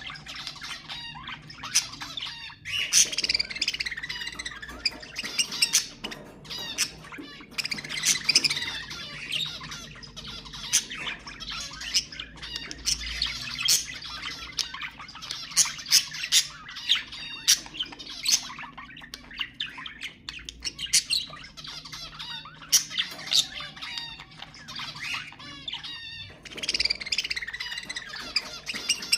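Budgerigars chattering and warbling, with frequent sharp squawks and clicks; the chatter drops away briefly near the end.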